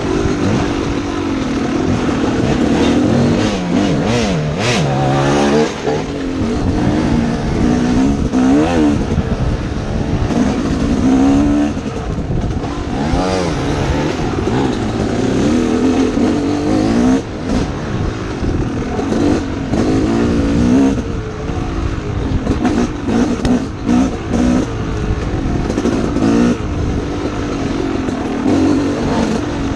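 Dirt bike engine revving up and down over and over as it is ridden through a tight trail, its pitch rising and falling every second or two, with short knocks throughout.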